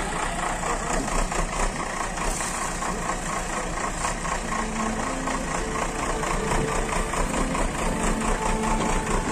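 JCB 3DX backhoe loader's diesel engine running steadily.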